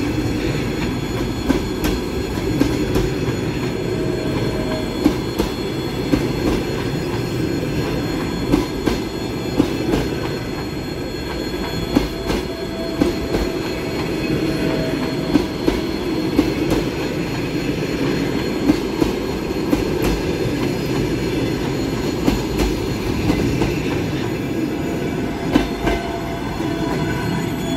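Passenger coaches rolling past on the track: a steady rumble of wheels on rails, broken by irregular sharp clacks over rail joints, with a few faint, brief wheel squeals.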